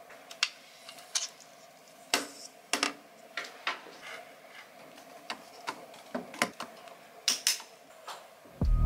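An Apple Pencil tapping on an iPad's glass screen and the clicks and clacks of a folding tablet stand being unfolded and set on the desk: a string of sharp, irregular clicks. Music comes in just before the end.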